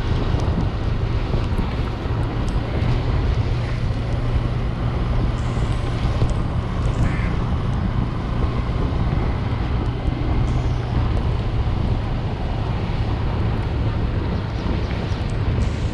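Steady wind rushing over the microphone of a moving motorbike, with the bike's low engine drone underneath.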